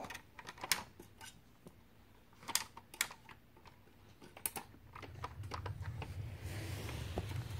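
Sharp plastic clicks and taps as a small action figure is snapped into the head of a Power Rangers Samurai Megazord toy, a handful of separate clicks. From about five seconds in, a low rumble with a hiss takes over.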